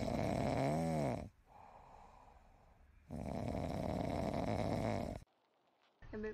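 A sleeping cat snoring: two long snores about three seconds apart with a quieter breath between, the first ending in a brief rising-and-falling whistle.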